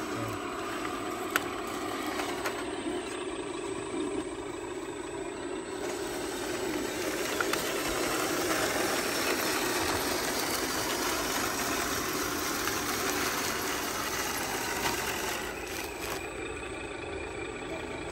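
Radio-controlled scale truck and Hitachi Zaxis 360H excavator models running, a steady engine-like hum with some rattle. It swells in the middle and drops off about sixteen seconds in.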